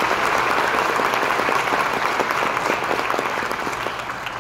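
Audience applauding, dense clapping that eases off slightly near the end.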